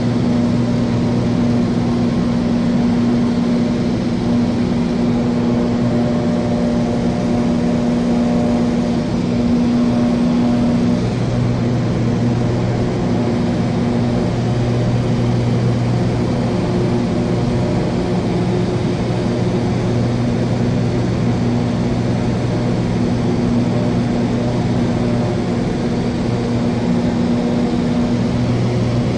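Cessna light aircraft's piston engine and propeller droning steadily in cruise: a steady low hum over a constant rush of air. The engine note shifts slightly about eleven seconds in.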